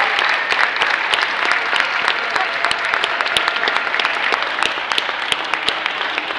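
Audience applauding steadily, many hands clapping at once, easing off a little near the end.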